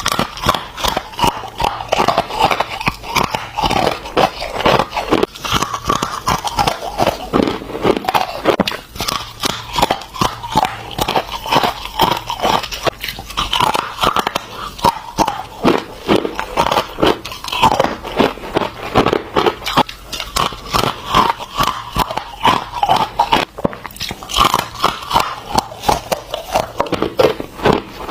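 Ice being bitten and chewed close up: a dense, uneven run of sharp crunches, several a second.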